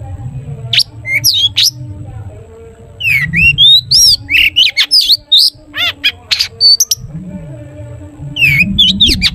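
Long-tailed shrike (cendet) singing in loud bursts of sharp whistles and quick rising and falling notes: about a second in, from about three to seven seconds, and again near the end. A faint steady low hum sits underneath.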